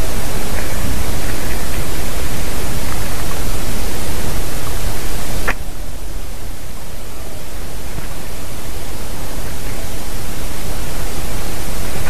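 Loud, steady hiss of noise from the nest camera's microphone. About five and a half seconds in, a sharp click, after which the hiss drops in level and slowly builds back up.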